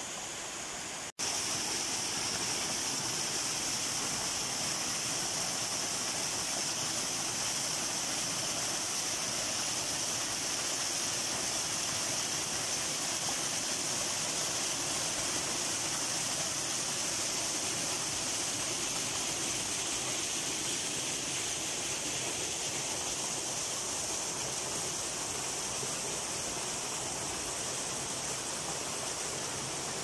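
Small waterfall splashing over rocks into a pool: a continuous rushing hiss, cut off for an instant about a second in.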